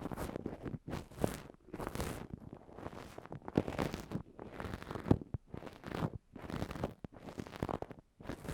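An ear-cleaning tool scraping and rubbing against the microphone in repeated short strokes at uneven intervals, each stroke under a second.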